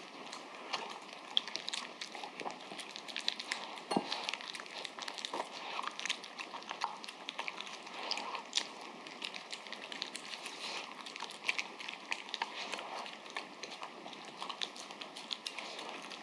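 Papillon dog eating udon and chopped vegetables from a ceramic bowl: a steady run of small, quick chewing and mouth clicks, with one duller knock about four seconds in.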